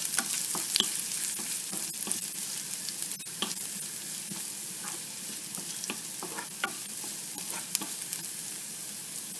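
Minced ginger with mustard and cumin seeds sizzling in hot oil in a nonstick pan, stirred steadily with a spatula, with scattered short clicks. This is the tempering stage of the spices.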